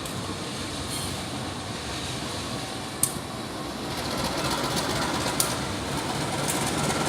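Train running, a steady rumbling noise that grows louder about four seconds in, with a few sharp clicks.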